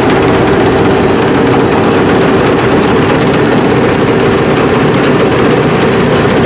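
Sakpattana SS-300 Black Bird combine harvester, with its five-cylinder 170 hp engine, running with a loud, steady drone and a constant hum that does not change.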